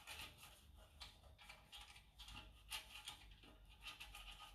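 Faint, irregular scratchy strokes of a pastry brush spreading oil around the inside of a metal cake pan.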